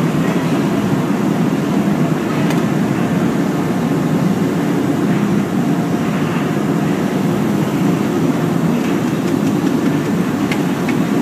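Steady, loud industrial roar of a glassblowing hot shop: furnace burners and fans running, with a couple of faint clinks of glass tools.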